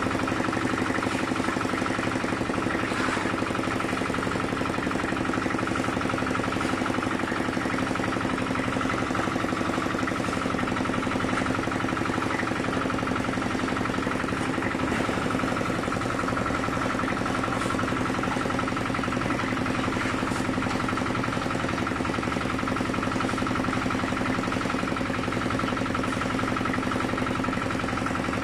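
Portable concrete mixer's engine running steadily, an even hum with a constant pitch.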